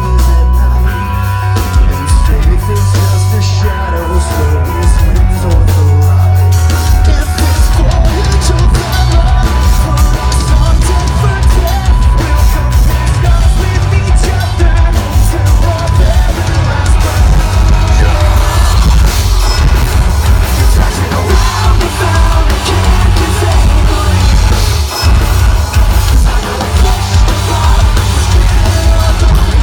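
Metalcore band playing live at full volume: drums, heavy bass and guitars with vocals, continuous and loud.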